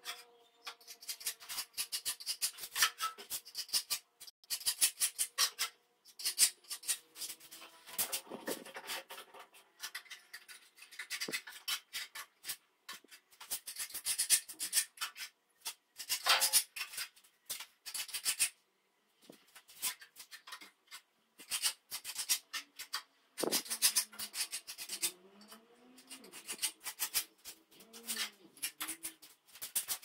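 Hand scraper on a plaster wall and concrete shelf, scraping in quick rasping strokes that come in bursts with short pauses.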